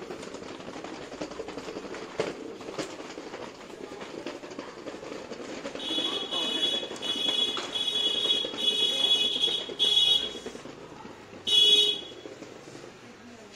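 Street background noise, then a high-pitched vehicle horn honking in a quick run of about five blasts from about halfway through, with one more short honk near the end.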